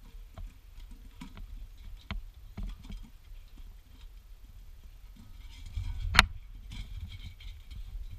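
Puppies jostling at a steel bowl right beside the microphone: scattered small clicks and knocks against the bowl, with one sharp knock about six seconds in, over a low rumble.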